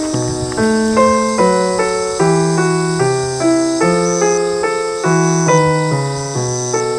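Background piano music: a steady run of notes, about two chords a second, each fading after it is struck.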